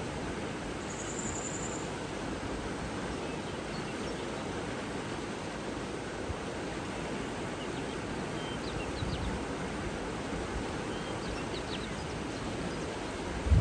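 Steady rushing of running water, with a short high bird trill about a second in and a few faint bird chirps later on.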